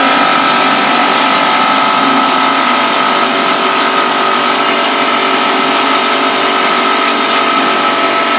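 7.5 hp cattle feed grinder machine running at speed: a loud, steady mechanical whirr with a constant high whine.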